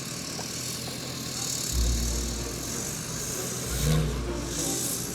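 Off-road 4x4 vehicle engine running with a steady hiss, while deep bass notes of music come in about two seconds in.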